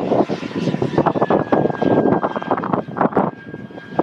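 Radio-controlled model J-10 jet flying overhead: its motor's thin, high whine drifts slowly down in pitch under a loud, gusty rushing noise.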